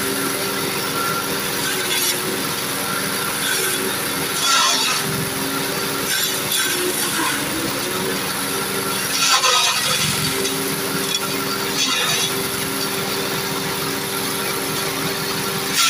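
Grass-chopper machines running steadily, driven by a small stationary engine, with short bursts of chopping noise as green leafy fodder and stalks are pushed into the blades, louder about four and a half seconds in, about nine and a half seconds in, and about twelve seconds in.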